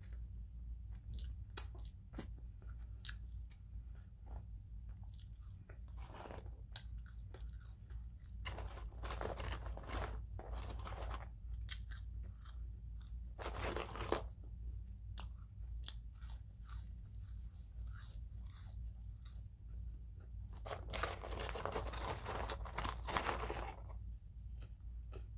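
Close-up mouth sounds of a person chewing McDonald's fries: many small wet clicks and smacks, with a few longer, noisier stretches of chewing. A steady low hum runs underneath.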